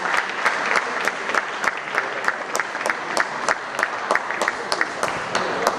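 Audience applauding, with a steady beat of about three claps a second standing out over the general clapping.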